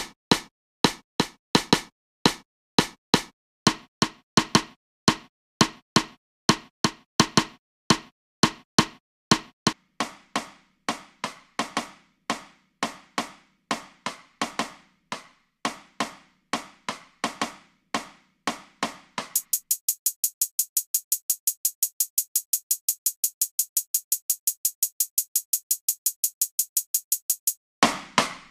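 Programmed drum-machine beat playing back, kick and snare hits about two to three a second. About two-thirds of the way in, everything drops out except a fast, high hi-hat ticking about six times a second, and the full beat comes back near the end.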